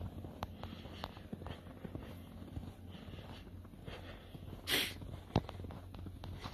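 Footsteps on a thin layer of snow, heard as scattered soft clicks and crunches over a low steady hum, with one short breathy rush a little past halfway through and a sharp click just after it.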